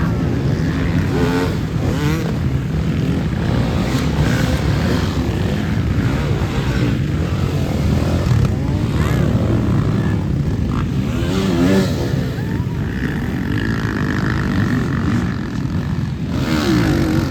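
Many off-road motorcycle engines running together on a sand race course, a dense engine drone with individual bikes revving up and down as they pass, notably near the start, about eleven seconds in and near the end.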